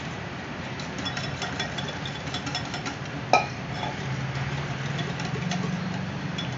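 A spoon clinking and scraping against a bowl while water is stirred into gram flour batter, with many small clicks and one louder knock about three seconds in. A steady low hum runs underneath.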